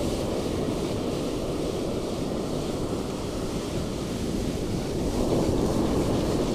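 Surf rolling onto a sandy beach, with strong wind buffeting the microphone: a steady low rush that swells a little near the end.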